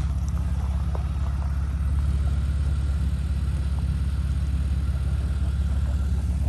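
Off-road vehicle engine running steadily at low revs, a deep, even drone.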